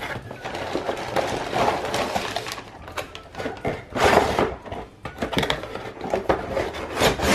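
A cardboard toy box being opened and the cellophane-wrapped contents handled: crinkling plastic and scraping cardboard, with louder rustles about four seconds in and again near the end.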